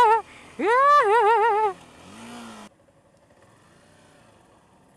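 A motorcycle engine revved hard, twice in quick succession: the pitch climbs fast and then wavers rapidly up and down at the top of each rev before dropping off. A short, lower rev follows, then the engine settles quietly.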